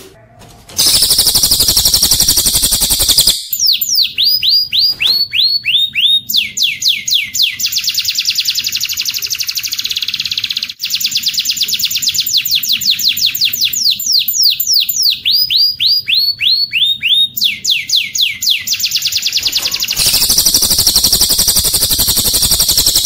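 Bird-song training recording of cililin song joined with domestic canary song: a dense, fast, high trill, then a long run of repeated downslurred whistled notes about three a second, and the dense trill again near the end.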